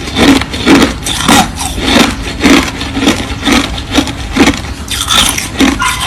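Crushed ice being chewed close to the microphone: steady, crisp crunches at about two bites a second.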